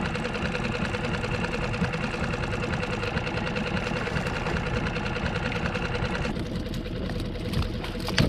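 Small outboard motor running steadily at trolling speed on a skiff, with a higher mechanical whine over it that stops about six seconds in. A couple of short knocks come near the end.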